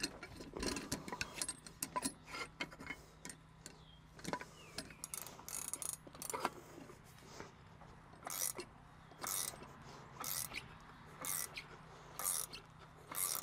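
Ratchet wrench clicking as it winds the caging bolt nut on an air brake spring chamber, caging the spring brake. Scattered clicks and knocks at first, then short bursts of clicking about once a second in the second half, one for each swing of the handle.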